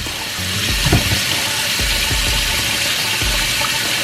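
Tap water running steadily into a sink, with a faint knock about a second in.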